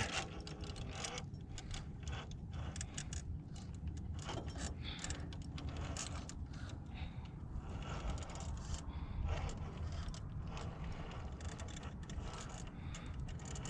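Traxxas TRX4 Sport RC rock crawler climbing: its brushed electric motor and geared drivetrain whirring under load, with tires and chassis scraping and clicking against rock.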